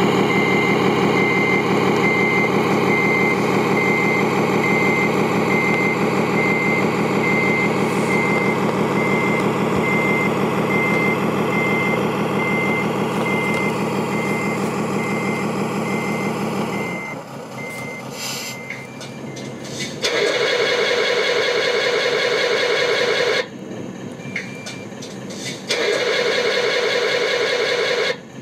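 RC heavy-haul truck's sound module playing a diesel engine with a reversing beeper going at about two beeps a second. Engine and beeps stop about two-thirds of the way through. Then come two stretches of a louder engine sound, a few seconds each, that start and stop abruptly.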